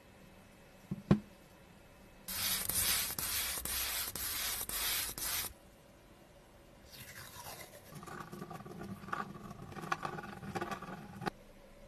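A short tap about a second in, then about three seconds of steady spray-paint hiss that starts and stops sharply. Later a pen scratches and scrapes as it traces circles through a plastic stencil onto a yellow sheet, ending in a click.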